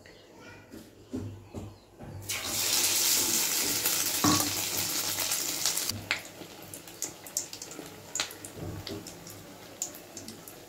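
Egg-battered bread slice deep-frying in hot oil: about two seconds in, a loud sizzle starts suddenly and holds for some four seconds, then drops to a quieter steady sizzle with many small crackling pops.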